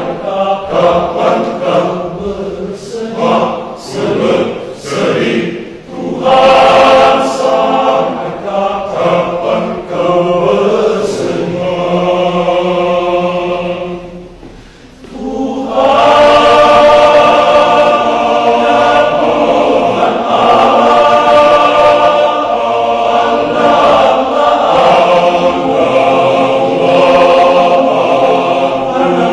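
Men's church choir singing, breaking off briefly about halfway through and then coming back in fuller.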